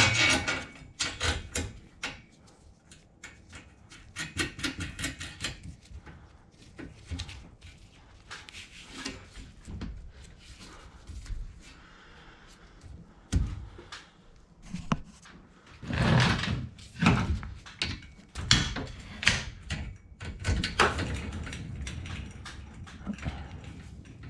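Metal clinks, clanks and rattles of garage door extension spring hardware being handled and hooked into place, in irregular clusters with quieter pauses between.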